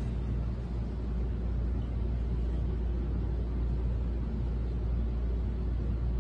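A steady low rumble of background noise, even throughout, with no voice.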